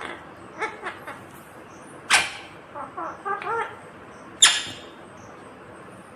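Green ringneck parakeet calling: short chattering calls with two loud, sharp screeches, about two seconds in and again about four and a half seconds in.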